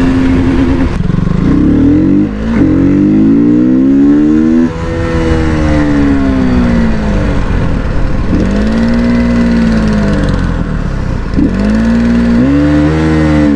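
KTM single-cylinder motorcycle engine with a modified exhaust note, revving and accelerating. Its pitch climbs and drops sharply twice, falls away slowly, then rises and falls twice more.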